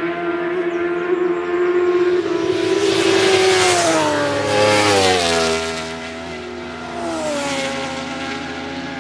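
Superbike racing motorcycle at high revs, its engine note steady as it approaches and loudest as it passes close by. About halfway through the pitch drops in a long slide, and it drops again a couple of seconds later as the bike heads away.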